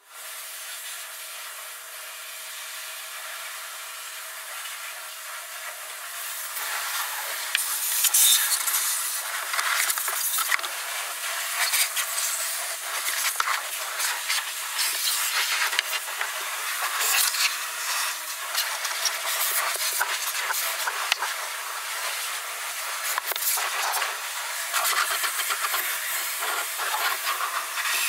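Underbody car wash: jets of warm water spraying against the underside and body of a Fiat 500, heard from inside the cabin as a hiss. It grows louder about six seconds in, with irregular surges of splashing.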